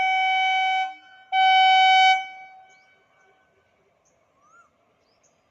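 WAP-4 electric locomotive's air horn sounding two blasts: a long one that cuts off about a second in, then a shorter, louder one that trails away. Faint bird calls near the end.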